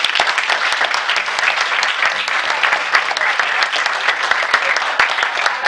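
Audience applauding: many hands clapping in a small room, a dense, steady patter of claps.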